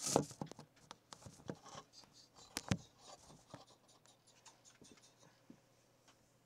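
Handling noise from the phone that is filming: a quick run of clicks and knocks as it is moved and set in place, thinning out after about three seconds into a few faint ticks.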